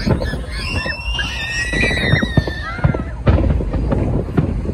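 Aerial fireworks display: shells bursting with repeated bangs and crackles over a low rumble. High, drawn-out whoops from spectators rise over them in the first two seconds.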